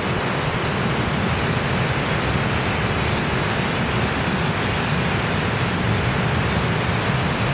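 Rough sea waves breaking and washing over shoreline rocks, a steady, unbroken noise of surf and churning water.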